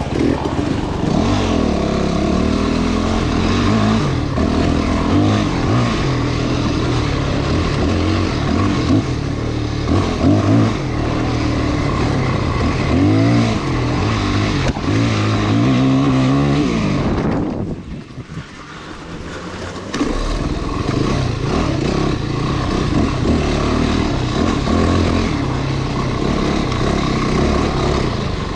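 Off-road motorcycle engine running under riding load, revving up and down as the throttle is worked. About two-thirds of the way through it drops away for a couple of seconds, then picks back up.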